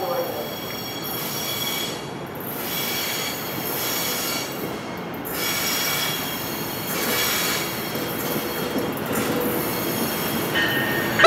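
An approaching NJ Transit Multilevel push-pull train: a high, steady wheel squeal on the rails that fades out and comes back a few times, growing a little louder as the train nears.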